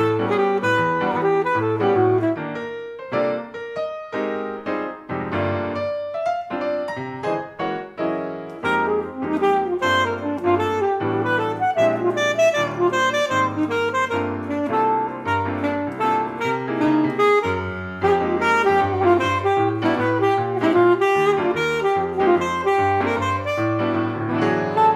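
Alto saxophone and piano duo playing a jazz-inflected concert piece: the saxophone carries a moving melody over piano chords and bass notes. The music thins out and gets quieter a few seconds in, then returns fuller and busier.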